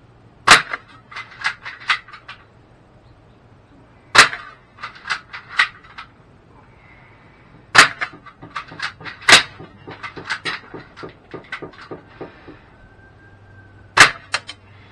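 Daisy No. 25 BB gun shooting at a paper target on a wooden board, heard from beside the target: five sharp cracks a few seconds apart, the loudest sounds, each followed by a run of lighter clicks.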